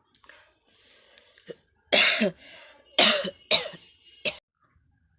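A person coughing deliberately. Soft throat-clearing comes first, then four loud coughs in quick succession: the first is the longest and the last is a short final burst.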